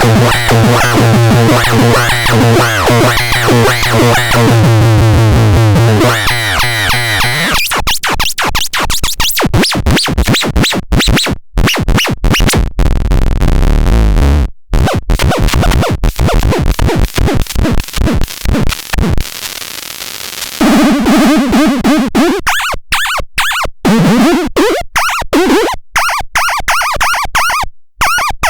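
Miniature electronic drum synthesizer making harsh, glitchy synth noise: a buzzing low drone at first, then rapid stuttering clicks and pulses from about seven seconds in, and near the end chirping tones with a pitch sweep.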